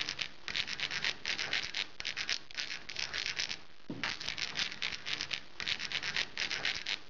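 A pen scratching across a surface in quick short strokes, as in handwriting, with a brief pause about halfway through.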